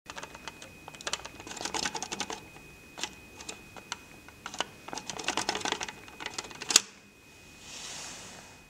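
Fast bursts of mechanical clicking, like typing, with a single loud sharp click about two-thirds of the way through, then a soft swell of hiss near the end. A faint steady high whine runs underneath.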